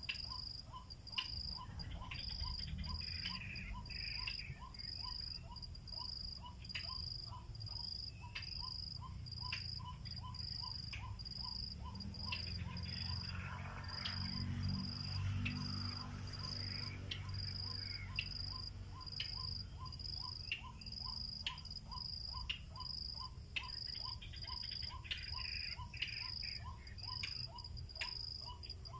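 Insects chirping in a steady rhythm: a high pulsing note about twice a second and a lower one a little faster, over a low rumble that swells briefly mid-way, with scattered sharp clicks.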